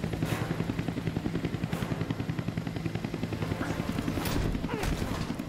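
Helicopter rotor beating steadily with a fast, even pulse, with a few short sharp hits over it.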